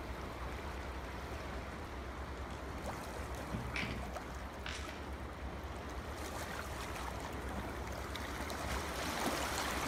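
Steady low hiss with a constant low hum, and a couple of faint taps from paper and a glue bottle being handled about four seconds in.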